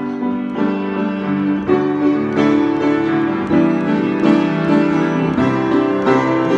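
Piano or keyboard playing the chordal introduction to a worship song, steady chords changing every half second or so.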